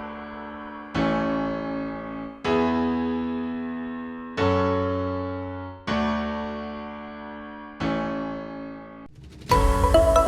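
Background music: slow, sustained keyboard chords with a piano-like sound, struck about every one and a half to two seconds, each fading away. Near the end it cuts to a busier passage.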